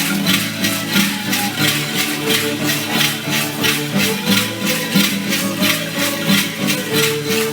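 Traditional dance music: rattles shaken in a steady, even beat, about three strokes a second, over low sustained instrument notes.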